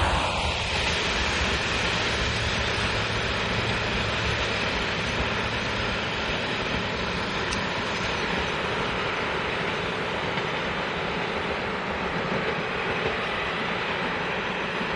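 Passenger train coaches rolling away over the rails: a steady rumble of wheels on track that fades slowly as the last coach recedes.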